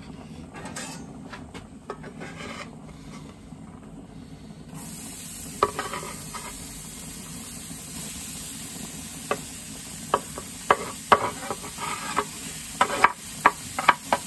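Chopped red onions scraped off a wooden cutting board with a metal spatula onto an oiled cast-iron griddle plate. About a third of the way in a steady sizzle starts as they land on the hot plate, with sharp scrapes and taps of the spatula on board and plate through the rest.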